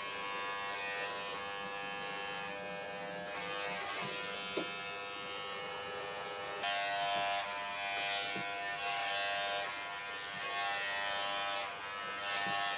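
Corded WAHL Pet-Pro electric pet clipper running with a steady buzz as it clips a small dog's long coat, getting louder in several short stretches in the second half.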